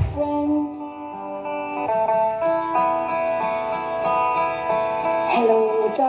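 Music played through a stacked outdoor sound system of Geostorm 15-inch speaker cabinets: a plucked, guitar-like melody with long held notes. A quick falling sweep comes right at the start.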